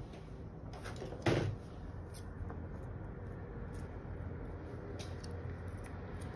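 Room tone: a steady low hum, with one short knock about a second in and a few faint clicks.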